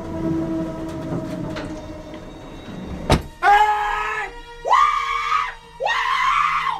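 A low rumble inside an elevator car. About three seconds in comes a sharp click, then a person screams three times, each scream lasting about a second, with short breaks between.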